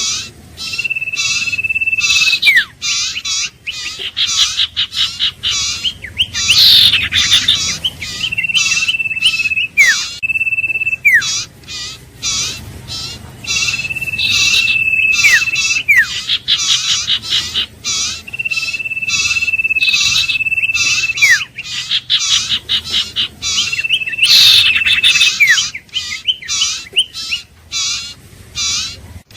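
Iora song: long level whistles, each held for a second or two and ending in a quick downward slur, repeated about every four to five seconds over a fast, continuous run of sharp chirping notes.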